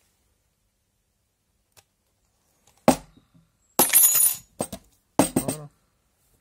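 Small metal battery connector plates and tin snips set down and dropped onto a table: a sharp knock about three seconds in, then three short bursts of metallic clinking and clattering.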